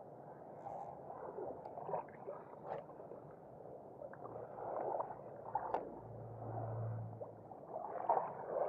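Small waves gurgling and lapping at the shoreline, with scattered light clicks and a brief low hum about two-thirds of the way through.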